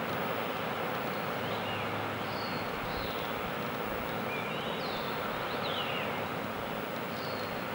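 Steady rush of a waterfall, with a bird calling over it in several short chirps and whistles.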